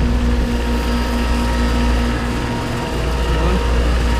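Outdoor air conditioner condensing unit with a Copeland compressor running steadily: a deep compressor hum with the condenser fan's rush and a few steady tones over it.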